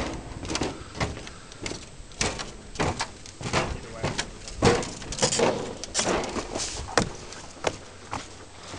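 Footsteps on the wooden planks of a floating dock, a steady walk of about two to three steps a second.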